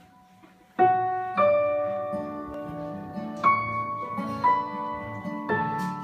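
Nord Stage keyboard playing a slow piano intro. After a quiet first second, a handful of chords are struck one to two seconds apart, each left ringing.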